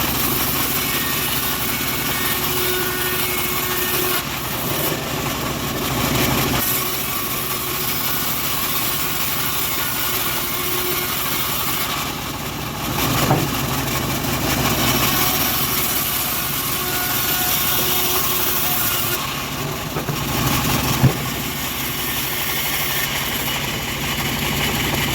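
Engine of a homemade bandsaw mill running steadily, with a short sharp knock about 21 seconds in.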